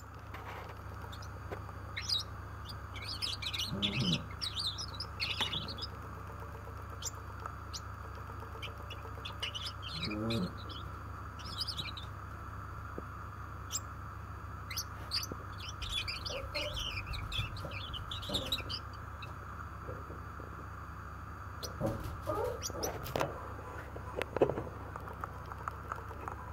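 Gouldian finch singing: quiet phrases of high, thin, rapid notes mixed with low buzzy notes. The song comes in several bursts with pauses between them.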